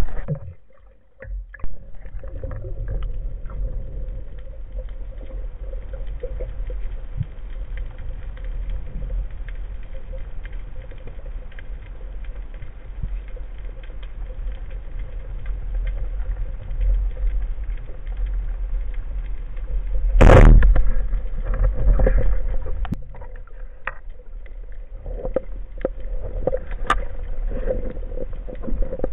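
Underwater sound picked up by a camera mounted on a speargun: a steady low rumble of water noise with scattered small knocks and clicks, and one loud burst about twenty seconds in.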